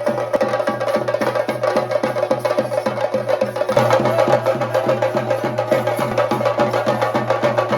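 Theyyam ritual drumming on chenda drums, beaten in a fast, even rhythm of about five strokes a second, with a steady held tone underneath; the low end grows louder about halfway through.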